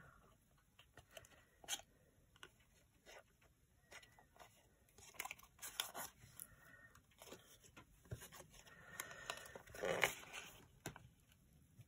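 Faint rustling and crinkling of a cardstock piece being handled and peeled, with scattered small clicks and taps, a little louder about two seconds in, around five to six seconds in and near ten seconds in.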